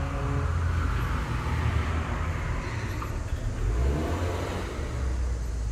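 Motor vehicle traffic: a steady low rumble with a car engine that rises and falls in pitch about four seconds in.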